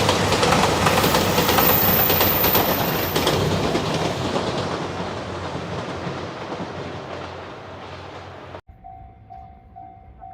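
JR Shikoku 2700 series diesel express train passing a level crossing, its wheels clicking over the rail joints, with the noise fading as it draws away. After a sudden cut near the end, a level-crossing warning bell rings faintly, about twice a second.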